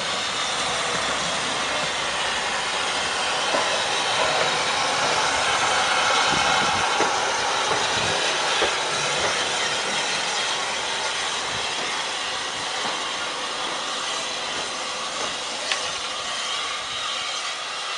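LSWR M7 class 0-4-4 tank locomotive hissing steam as it runs slowly past, with a few knocks from its wheels on the track. It is loudest as it goes by and fades a little as it draws away.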